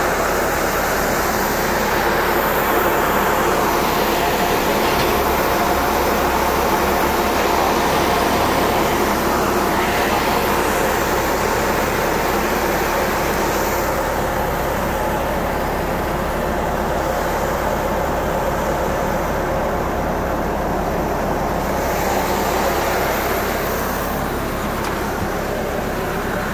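Steady drone of airport ramp noise, turbine engines and ground equipment running with a faint held tone, easing slightly near the end.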